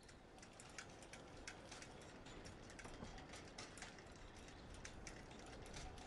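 Faint, rapid, irregular clicking and crackling over a low rumble, fading in and out.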